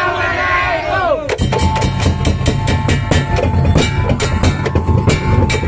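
A drawn-out vocal call, then about a second and a half in, beduk (large Indonesian barrel drums with hide heads) struck with wooden sticks come in with a fast, heavy beat. A steady high tone is held over the drumming.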